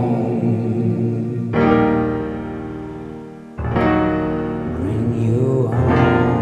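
Song's keyboard part: sustained electric-piano chords, a new chord struck about one and a half seconds in and another about three and a half seconds in, each ringing on and fading.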